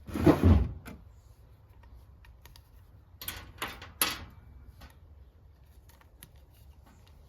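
Hands working clear plastic tubing onto a dispenser's fitting: a loud rubbing squeak of the tube in the first second, then a few scrapes and light clicks of plastic parts.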